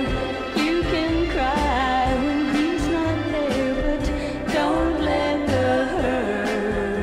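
A 1960s pop single playing: a woman singing a wavering melody over a band with bass and a steady drum beat.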